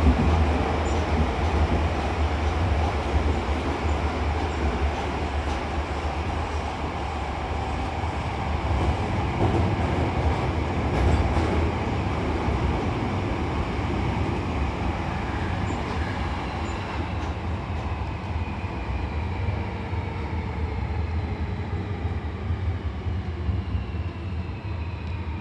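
Hankyu Kobe Line electric train running, heard from inside the car: steady running and wheel noise, with a motor whine that falls slowly in pitch through the second half as the train brakes for its next stop.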